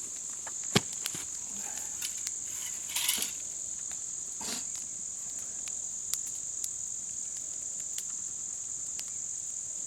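Steady high-pitched chorus of insects, with scattered sharp pops and cracks from a wood fire burning on a tree stump. The loudest crack comes just under a second in.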